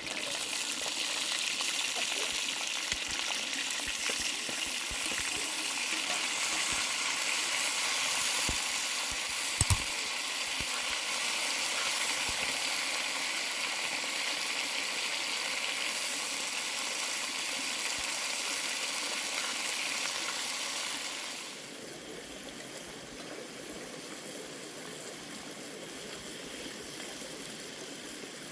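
Food sizzling in a pan over a fire, a steady hiss that drops to a quieter sizzle about 21 seconds in, with a sharp double knock about 10 seconds in.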